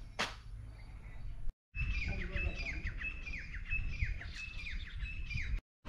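A small bird calling in a rapid series of short, falling chirps, about three a second, over a low outdoor rumble.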